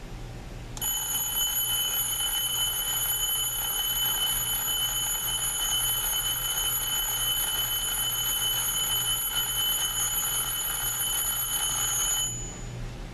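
Battery-operated metal mantle alarm clock's old-fashioned bell alarm ringing steadily. It starts just under a second in and cuts off suddenly about a second before the end.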